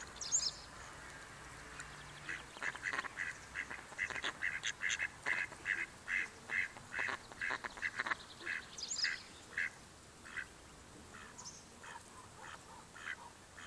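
Mallard ducks quacking: a fast run of short calls, about three a second, thinning out toward the end.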